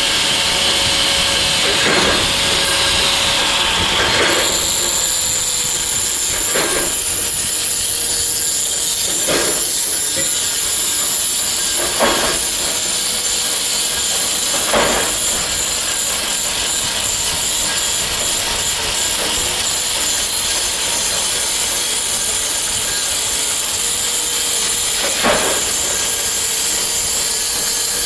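Steady, loud hiss of running industrial machinery with a high whine. A short knock or clank cuts in every two to three seconds through the first half, and once more near the end.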